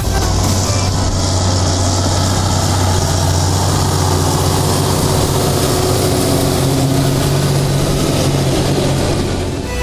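Diesel engine of a New Holland TM190 tractor running steadily under load as it pulls a seed drill past.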